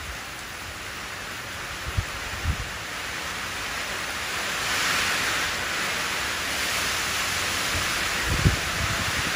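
Steady rain pattering onto a shallow puddle of standing water, an even hiss of drops hitting the surface that grows a little louder about halfway through. A few brief low thumps come about two seconds in and again near the end.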